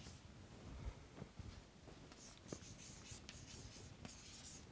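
Chalk writing on a chalkboard: faint scratching strokes with a few light taps.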